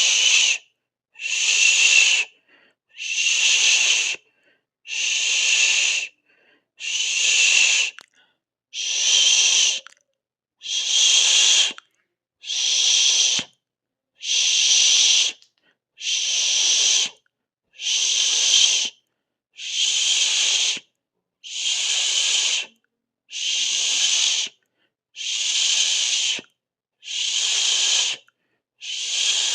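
A person shushing, a hissing 'shhh' made with the mouth, in even bursts of about a second with short silences between, about one every second and three-quarters.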